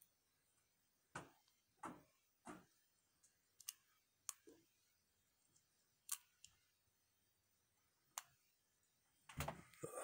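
Faint, sparse metallic clicks of a lock pick working the pins of a Chateau disc padlock's six-pin core, with a denser run of clicking and scraping near the end.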